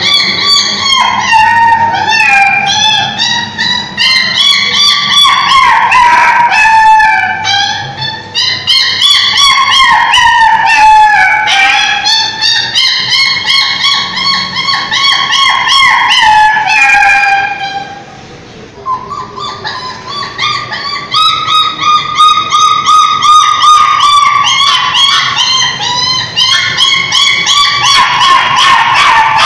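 Dog howling in long, wavering calls that rise and fall in pitch, with a short break about two-thirds of the way through, over background music.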